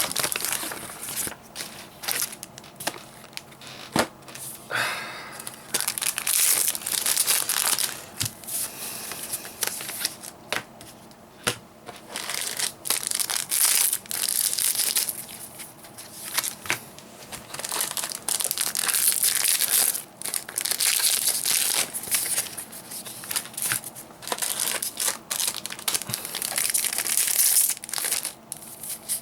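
Cardfight!! Vanguard foil booster packs being torn open one after another, the wrappers crinkling and crackling in irregular bursts with sharp snaps.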